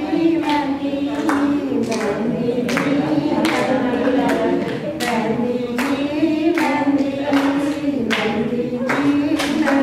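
A group of voices singing a song together, with hand claps keeping time about twice a second.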